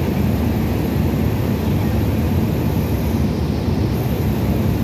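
Cessna 172's piston engine and propeller running steadily in cruise flight, heard inside the cabin.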